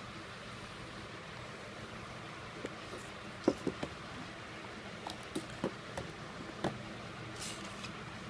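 Handling noises from a phone and its packaging: a scattered run of about a dozen light clicks and taps over a steady hiss, then a short swish near the end.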